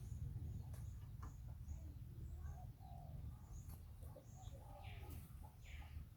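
Faint, scattered high chirps and peeps from small animals or birds, with two brief sweeping calls about five seconds in, over a steady low hum.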